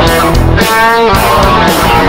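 Live rock band playing: electric guitars over bass guitar and drums with a steady beat, one note held for about half a second near the middle.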